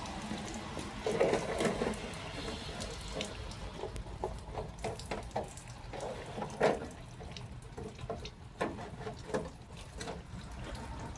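Water running and splashing, with a louder rustling swell about a second in and many irregular small clicks and knocks through the middle.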